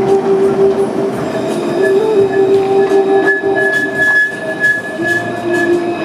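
Alstom Citadis low-floor electric tram running past close by: a steady electric whine that steps up and down in pitch over a rolling rumble, with a thin high squeal in the middle few seconds.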